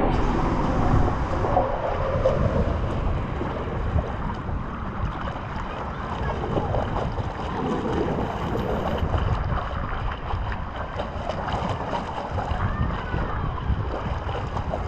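Water rushing and splashing along an Amusement Logic Hidrotubo fibreglass body slide as a rider slides down it feet-first, a steady noisy rush with wind noise on the microphone.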